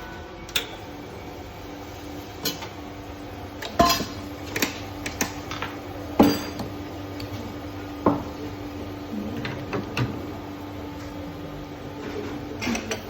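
Cups, dishes and metal coffee-machine parts clinking and knocking as they are handled, a sharp knock every second or two with the loudest about six seconds in, over a steady low hum.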